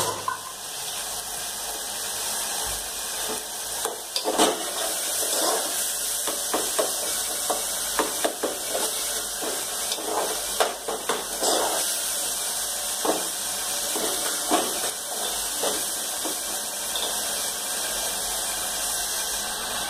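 Pot simmering on a gas stove: a steady hiss throughout, with scattered knocks and clinks of utensils against the aluminium pot from about four seconds in.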